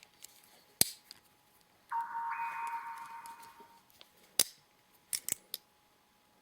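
Sharp metallic clicks and snaps of a Victorinox Swiss Tool Spirit multi-tool being handled, its tools opening and locking, once about a second in and then several in quick succession later. In between, a ringing tone lasts about two seconds.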